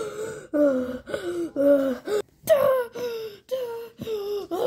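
A child's high-pitched voice making short wordless cries one after another, about two a second, most of them falling in pitch.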